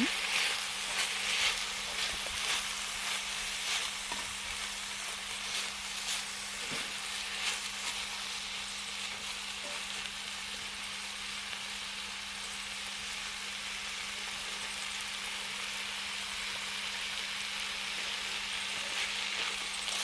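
Food sizzling as it cooks over a campfire, a steady hiss with scattered pops and crackles through the first several seconds, then settling into an even sizzle.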